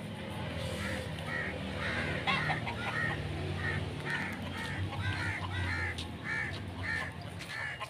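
Crows cawing over and over, about two caws a second, starting about a second in.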